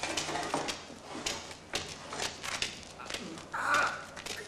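Footsteps and handling noises of men entering a room with furniture: a run of irregular clicks and knocks, with a brief louder sound about three and a half seconds in.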